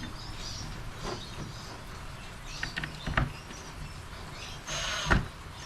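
A few light knocks and taps of wooden pieces being handled, with a short scraping rustle and a thump about five seconds in.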